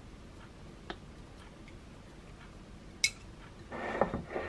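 Small tableware handling sounds: a faint tick, then a sharp click of wooden chopsticks against the ceramic pot about three seconds in. Near the end comes a short scrape as the white ceramic pot is shifted on the counter.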